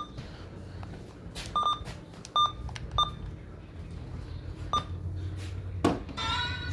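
Short electronic button beeps from a radio's keypad as it is operated, about six in all, some in quick pairs, with a few clicks. A brief wavering tone sounds near the end.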